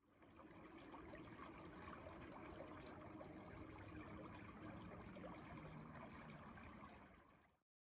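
Small woodland brook flowing, a faint steady rush and trickle of water that fades in and out.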